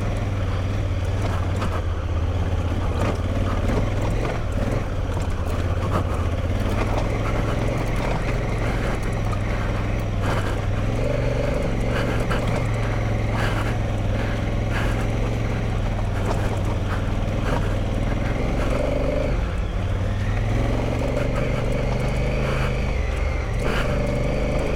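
2017 Honda Africa Twin's parallel-twin engine running steadily as the bike rides a rough dirt track, with scattered knocks and rattles from the tyres and suspension over rocks and ruts.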